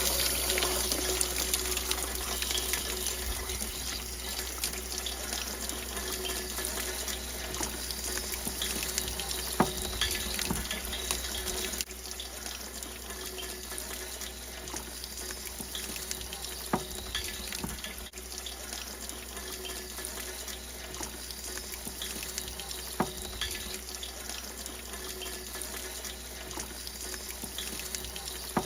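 Water rushing out of a Suburban RV water heater's drain opening as the tank is flushed, carrying lime scale out with it. A steady rush that drops a little about twelve seconds in, with a few faint clicks.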